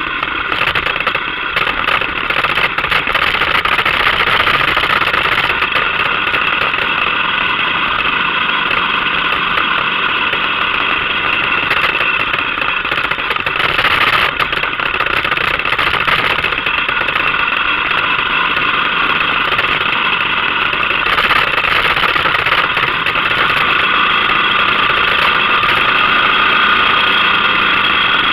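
Motorcycle engine running steadily while riding along, its note shifting briefly around the middle and again about two-thirds of the way through.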